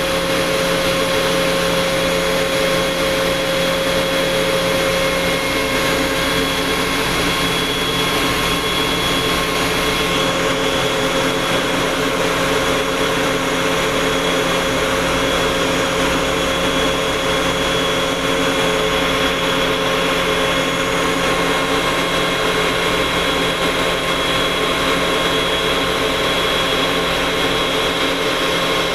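Steady machine drone of a running industrial air compressor: an even rushing noise with several steady whining tones over it, holding level throughout.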